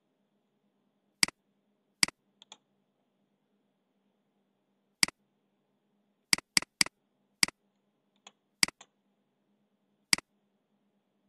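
Computer mouse button clicks: about ten short, sharp clicks at irregular intervals, with a quick run of three around the middle, over a faint low hum.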